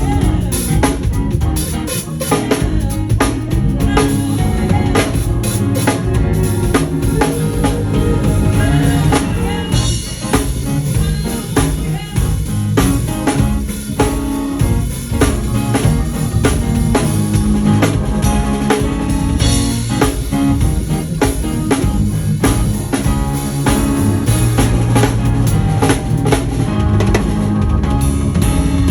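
Drum kit played in a busy, fast solo: kick drum, snare and cymbals in dense strokes throughout, over backing music with sustained low pitched notes.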